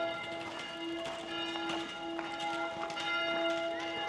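Church bells ringing, several tones sounding together and the lowest one struck again about once a second, with scattered short clicks of street noise.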